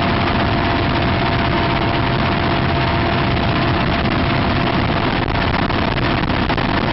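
Mi-17 helicopter in flight, heard from its open door gunner's position: a loud, steady mix of rotor and engine noise with a steady whine running through it.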